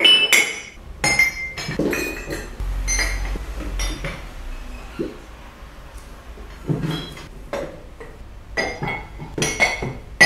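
Ceramic mugs and cups clinking and knocking against each other as they are picked up, moved and set down on a counter. The clinks come thick at the start and again in the last few seconds, with a quieter gap in between.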